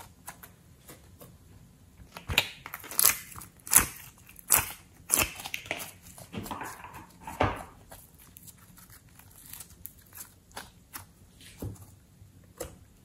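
Soft slime squeezed and kneaded between fingers, giving sticky clicks and pops, loud and frequent for several seconds in the middle, then fainter.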